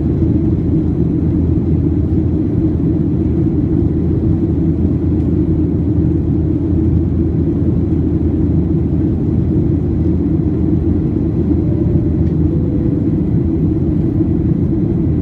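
Steady low roar of a Boeing 737-700's engines and airflow, heard inside the cabin as the airliner climbs out after takeoff.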